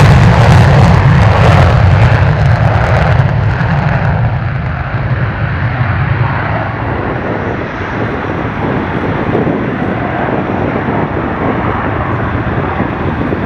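Belgian Air Force F-16's single Pratt & Whitney F100 turbofan in full afterburner on the takeoff roll and climb-out. The jet noise is loudest at first, then grows duller and quieter over the first several seconds as the jet moves away, and holds steady after that.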